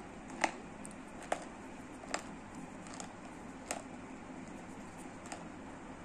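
A handful of sharp, isolated clicks at uneven intervals over a steady low hiss, the loudest about half a second in.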